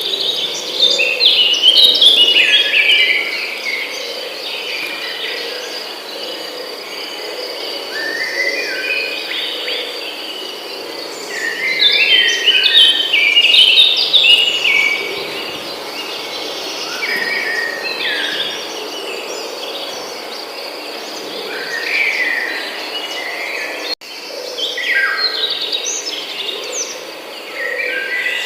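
Songbirds singing in bursts of quick, stepped, falling phrases every few seconds, over a steady high insect trill. The sound drops out for an instant about three quarters of the way through.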